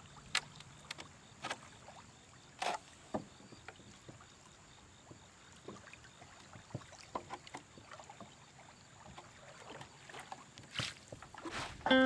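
Kayak being paddled: faint water splashes and drips from the paddle, with scattered small clicks and knocks at uneven intervals, a few of them louder.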